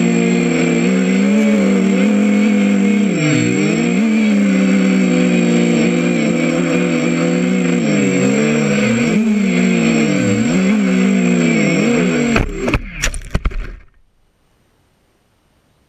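250-size FPV quadcopter's brushless motors and propellers whining, their pitch repeatedly dipping and rising with the throttle, heard from the GoPro mounted on the quad. About twelve seconds in, the quad hits the ground with several knocks and the motors cut off.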